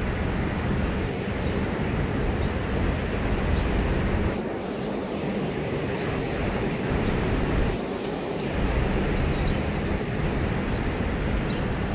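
Steady city street noise, mostly a low traffic rumble.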